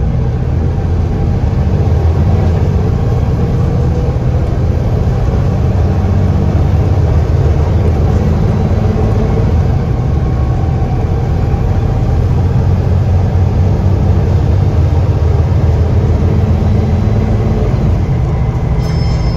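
Volvo B7TL double-decker bus engine running under way, heard from inside the passenger saloon as a steady low drone with road noise.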